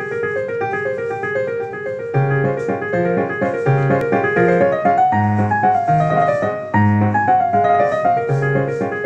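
Background piano music: a quick, repeating pattern of notes, with low bass notes joining about two seconds in and a falling melody line midway.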